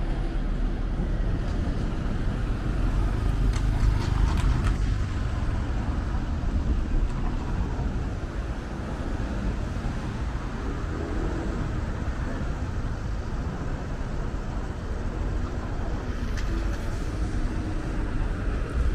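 City street traffic: cars running on the road at an intersection, a steady low rumble of engines and tyre noise.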